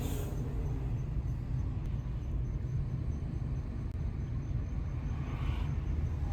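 Steady low rumble of a motor vehicle in motion.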